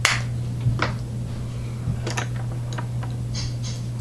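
Makeup items being handled: a handful of small clicks and taps, the sharpest right at the start, over a steady low hum.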